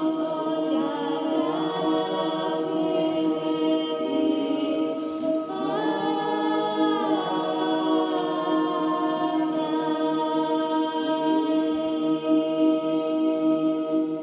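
Unaccompanied choral singing: several voices hold steady drone notes while others slide up and down over them.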